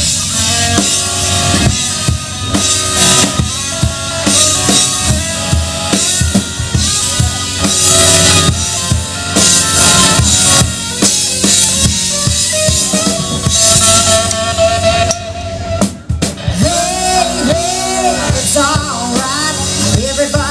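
Live country band playing an instrumental break: drum kit keeping a steady beat under a melodic lead line, with one long held note, and the singing coming back in near the end.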